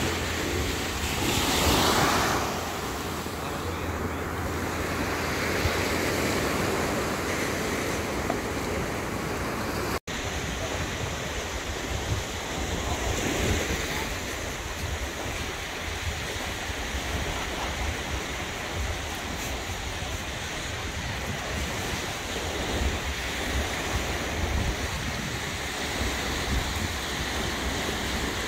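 Small waves breaking and washing up on a sandy beach, a steady surf wash, with wind buffeting the microphone.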